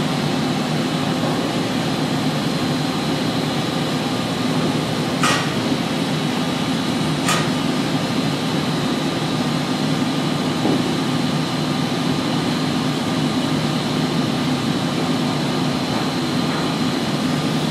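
Steady drone of construction-site machinery, a constant low hum with a thin high whine above it, broken by two sharp knocks about two seconds apart and a fainter one a few seconds later.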